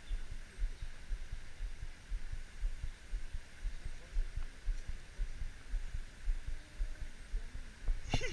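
Wind buffeting the action camera's microphone in irregular low thumps, over a steady faint hiss, with a sharp click near the end.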